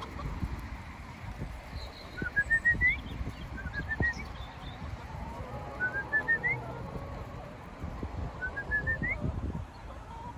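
A whistled call of four or five short notes climbing in pitch, repeated four times about two seconds apart, over the faint low calls of a flock of laying hens and wind rumble on the microphone.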